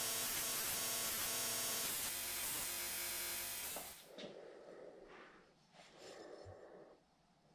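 Knifemaker's belt grinder running steadily with its motor hum and belt hiss, then cutting off abruptly about four seconds in.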